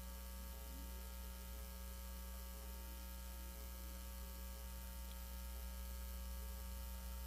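Low, steady electrical hum on a broadcast phone line with no voice on it: the caller's connection has dropped out.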